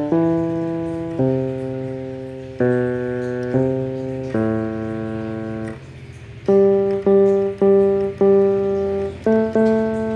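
Casio electronic keyboard played one note at a time: a slow melody of held, fading notes, then, after a brief gap about six seconds in, a run of quicker, evenly spaced notes.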